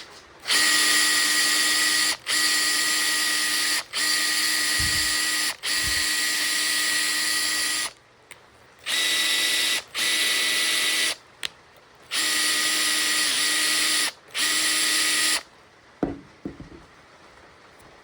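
Makita TP141D 18V cordless impact driver motor running freely with no load, triggered in a series of runs of one to a few seconds each, with a steady pitch and short stops between them. The runs are a test of the repaired tool.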